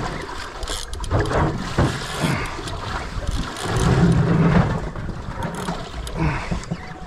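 Water slapping against the hull of a small boat at sea, with wind buffeting the microphone and scattered knocks. A louder, low, muffled rumble lasts about a second, a little past halfway.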